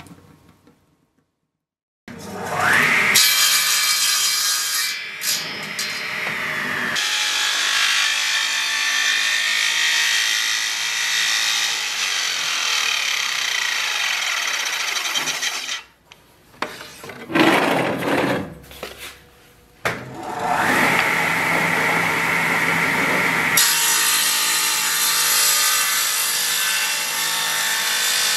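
Table saw starting up with a rising whine, then ripping a wooden board lengthwise with a steady cutting noise. It stops about halfway through, then starts up again about 20 seconds in and makes another rip cut.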